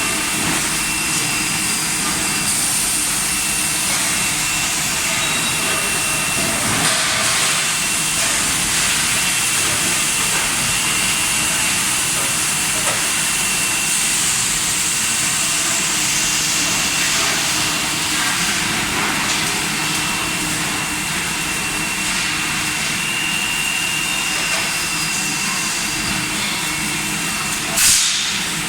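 Steady factory machinery noise, a constant hiss and hum with a thin high whine running through much of it, and a short loud burst of hiss near the end.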